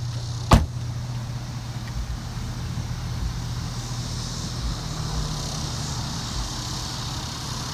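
Chevrolet Avalanche V8 engine idling steadily with a low hum. A single sharp knock sounds about half a second in.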